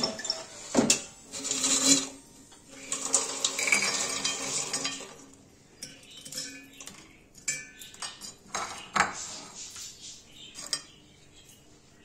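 Dishes and utensils clattering: a run of sharp knocks and clinks with stretches of scraping and rattling, busiest in the first half, as the freshly cooked fries are handled.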